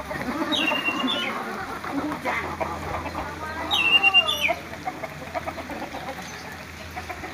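A chicken calling twice, about half a second in and again near four seconds in, the second call louder.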